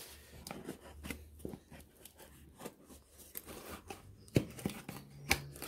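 Small cardboard box being handled and opened by hand: cardboard scraping and rustling, with tape tearing, and two sharp knocks near the end.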